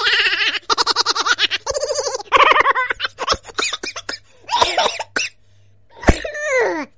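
A person laughing in quick bursts, followed by a few separate sliding vocal cries.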